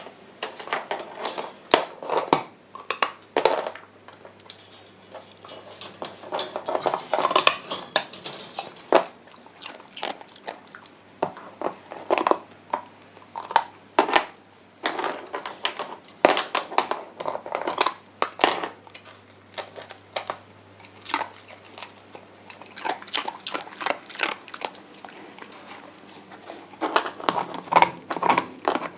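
White Shiba Inu puppy crunching and chewing ice, a run of irregular sharp crunches and clinks coming in clusters with short pauses between.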